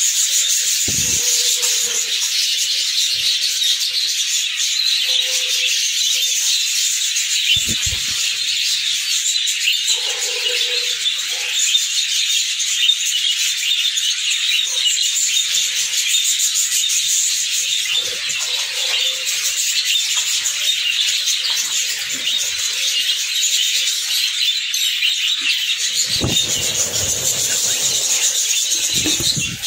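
A flock of budgerigars chattering and chirping continuously as a dense, high twittering. A few low bumps come about a second in, about eight seconds in, and near the end.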